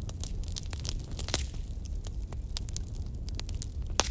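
Pot of meatball and vegetable soup simmering: scattered small pops and crackles over a steady low hum, with a sharper click near the end.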